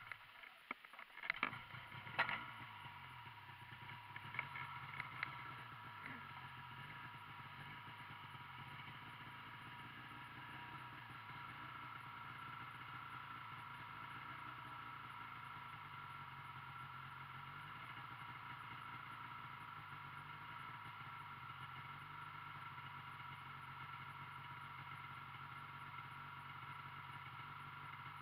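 Snowmobile engine idling steadily and fairly quietly, after a few sharp knocks in the first couple of seconds.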